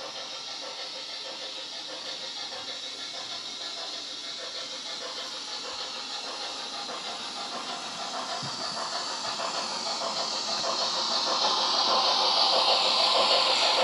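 Sound-fitted OO gauge model steam locomotive playing steam hiss and chuff from its onboard speaker as it runs toward the microphone, getting steadily louder over the second half.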